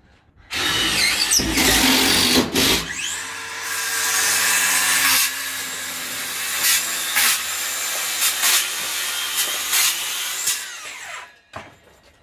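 Power tools: a loud burst of tool noise in the first few seconds, then a power saw cutting a 50 mm AAC (autoclaved aerated concrete) panel. The saw runs steadily and winds down about eleven seconds in.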